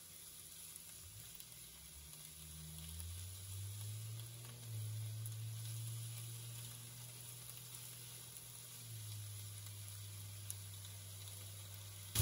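Raw shrimp, diced red onion and yellow bell pepper sizzling quietly in a nonstick frying pan, stirred now and then with a silicone spatula; the shrimp are raw and just starting to cook. A low hum swells in the middle and eases off again.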